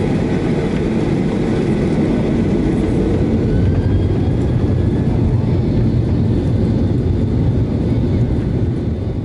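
Boeing 737-800's CFM56-7B turbofan engines running at takeoff thrust during the takeoff roll, heard from inside the cabin over the wing: a loud, steady rumble that swells slightly midway.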